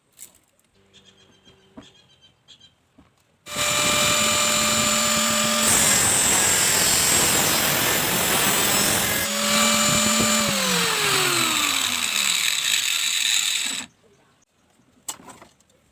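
Mini angle grinder starts about three and a half seconds in and runs with a steady high whine. In the middle stretch the sound turns harsher and noisier. Near the end the whine falls in pitch as the motor winds down, and the sound then cuts off abruptly.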